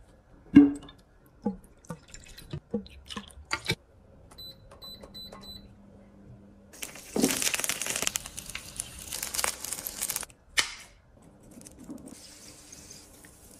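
A run of clicks and knocks, a few short high beeps, then about three seconds of liquid pouring and splashing, followed by one sharp knock.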